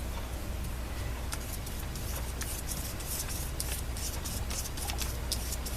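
Ink being swatched onto a paper card: a run of quick, short scratchy rubbing strokes of an applicator on paper, starting about a second in.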